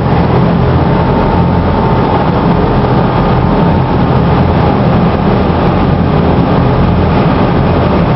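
Tour boat's engine running steadily under way, with a constant rush of wind and water noise over it.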